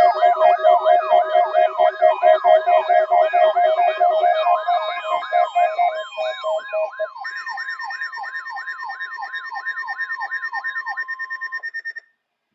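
Electronic siren sounds layered together, several tones sweeping quickly up and down a few times a second over steady held tones. The lower steady tones drop out partway through, a new higher layer comes in, and all of it cuts off abruptly near the end.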